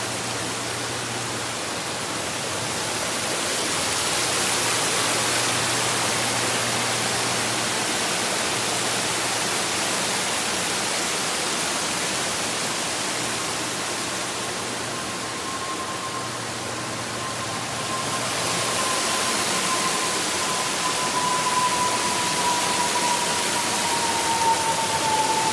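Steady rushing of a waterfall, swelling and easing in loudness. From about halfway a single drawn-out tone comes in over it and slowly falls in pitch.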